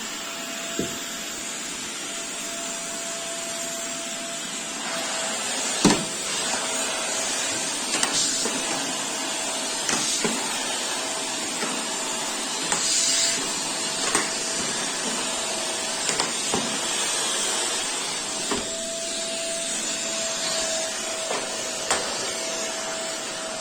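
Small vacuum cleaner running steadily with a constant whine, with light knocks about every two seconds, the loudest about six seconds in.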